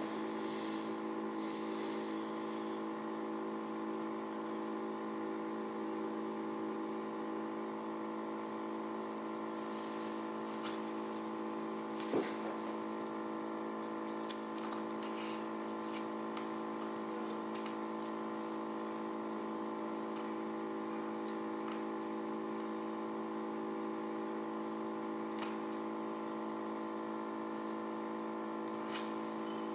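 A top spinning on a magnetic stirrer gives a steady whirring hum. Sharp clicks and ticks are scattered through it, clustered around the middle and again near the end.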